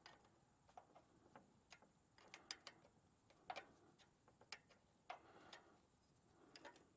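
Near silence broken by faint, irregular clicks and light taps from hand work on the loader's air horn line and fittings.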